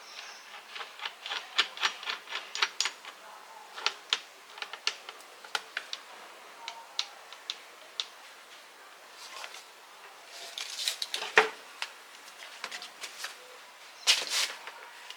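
Hard small objects being handled: a run of irregular sharp clicks and light taps, with a louder knock about eleven seconds in and brief scraping clusters shortly before it and near the end.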